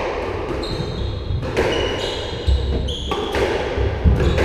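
Squash rally: the rubber ball is struck by rackets and hits the court walls several times, with short high sneaker squeaks on the wooden floor in between.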